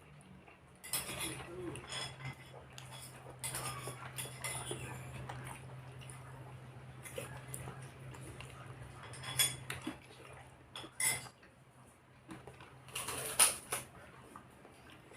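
Cutlery clinking and scraping against a plate in scattered bursts as a meal is eaten, with the sharpest clatter near the end.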